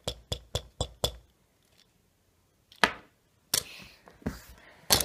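Quick plastic clicks, about four a second for the first second: a Littlest Pet Shop toy dog's head tapped over and over against a small plastic toy bottle to act out eating. A single knock follows nearly three seconds in, then soft handling noises as the toys are moved about.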